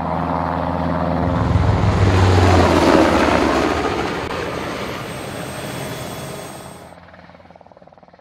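Helicopter rotor and turbine running, swelling for a couple of seconds and then fading away as it flies off.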